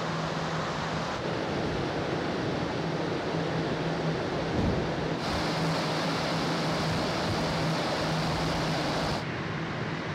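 Wind rushing over the open deck of a moving car ferry, over the ship's low, steady engine hum. The hiss turns brighter about five seconds in and settles again near the end.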